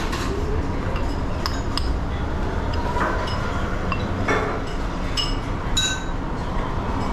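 Tableware clinking: bowls, plates and utensils knocking together in a dozen or so sharp clinks, some ringing briefly, over the steady hubbub of a small restaurant.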